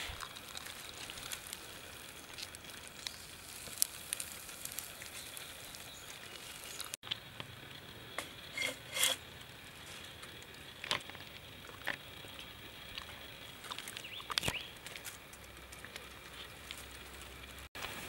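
Scattered light clicks, taps and rustles as a green bamboo cup and cut bamboo pieces are handled on dry leaves, over a faint steady outdoor hiss.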